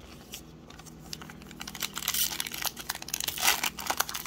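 Foil wrapper of a Panini Prizm basketball card pack crinkling as it is handled and pulled open, growing louder after about a second and a half.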